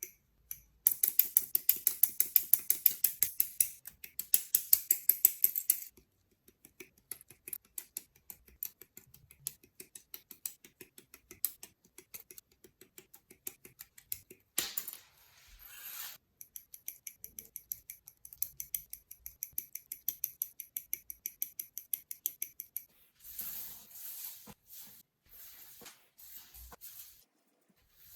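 Hard plastic parts of a Gundam model kit clicking in rapid runs of about ten small clicks a second, as they are worked by hand. The runs are broken twice by brief scraping or rustling, once in the middle and again near the end.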